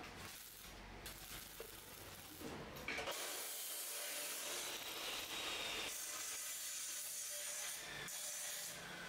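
Arc welding: a stick-welding arc hissing steadily for about five seconds as steel square tubing is welded, starting abruptly about three seconds in and stopping about a second before the end.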